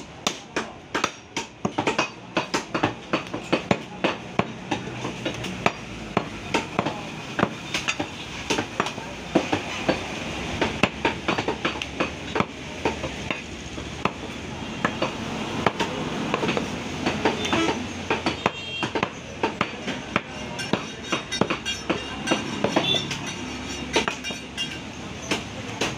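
Butcher's knife striking beef on a wooden chopping block made from a tree-trunk section: a quick, uneven series of sharp knocks, often several a second, over steady market background noise.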